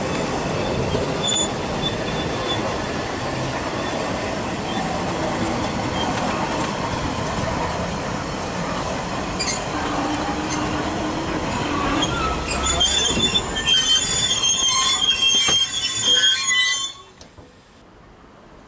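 Narrow-gauge Welsh Highland Railway train rolling slowly past, its coaches rumbling and clattering on the track. From about two-thirds of the way in, the wheels squeal in high, shrill tones, until the sound cuts off sharply near the end.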